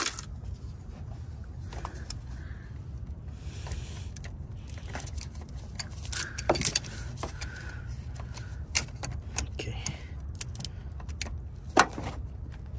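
Scattered metallic clicks and clinks of hose pliers working a radiator hose clamp, with a louder clack about halfway through and another near the end, over a steady low rumble.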